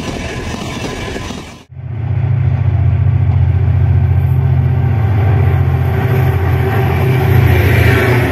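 Passenger coaches rolling past on the rails, then, after a break about 1.7 s in, a diesel-electric locomotive's engine running with a loud, steady low drone as it approaches and passes close by.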